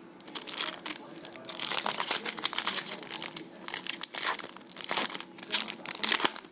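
A trading card pack's wrapper being torn open and crinkled by hand, in a run of irregular crackly rustles.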